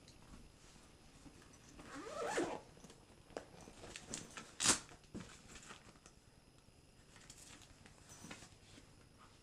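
Zipper on an AmazonBasics DSLR and laptop backpack pulled briefly about two seconds in, rising in pitch. A sharp click follows near the middle, then smaller clicks and rustles as the bag's straps and fittings are handled.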